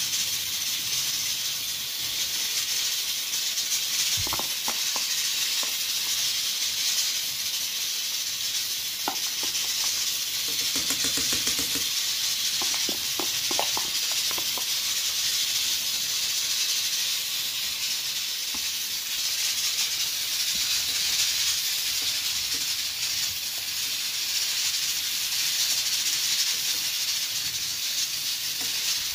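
Pakoras deep-frying in hot oil in a frying pan: a steady sizzle. A few light clicks and taps come about four seconds in and again between about nine and fourteen seconds.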